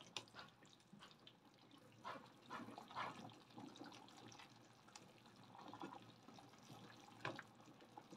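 Faint bubbling of a large pot of rawon beef broth at a rolling boil, with irregular small splashes and drips as a ladle stirs and pours broth back into the pot.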